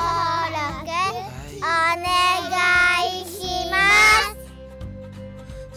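Outro music with a high, child-like singing voice that rises to a final high note about four seconds in; quieter instrumental music carries on after it.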